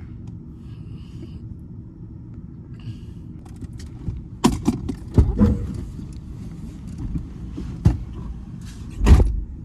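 Steady low rumble of a vehicle, heard from inside the cab. A few sharp knocks come about halfway through, with a louder thump near the end.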